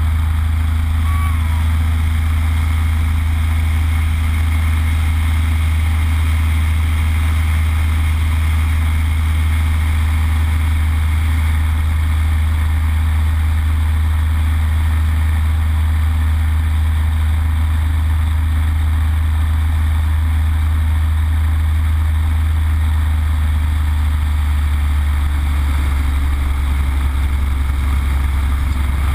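Yak-52's nine-cylinder M-14P radial engine and propeller running steadily in flight, heard from inside the cockpit as a loud, constant low drone.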